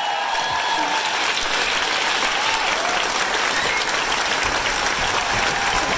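A crowd applauding steadily at the end of a play.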